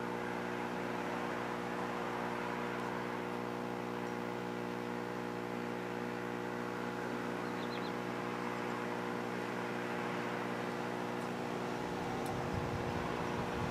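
A steady hum with an even hiss over it, with a low rumble coming in near the end.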